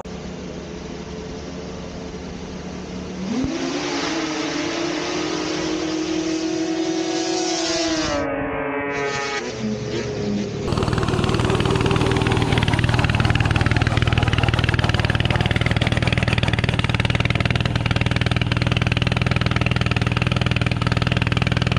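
Snowmobile engines at a grass drag race. One sled revs up about three seconds in and holds a high pitch, then its pitch slides down. From about eleven seconds a louder, steady low engine drone takes over.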